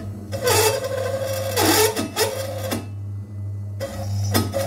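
Bench drill press motor humming at low speed while a dull countersink bit chatters and squeals as it cuts into a metal plate. The cutting noise lets up about three seconds in, followed by a couple of short knocks. The chatter is the sign of a countersink that is not sharp.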